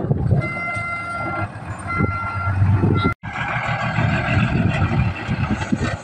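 Dump truck diesel engine running, with a steady two-note electronic warning tone from the truck sounding three times: one long stretch, then two shorter ones. The sound cuts out for an instant about three seconds in, and engine noise then runs on.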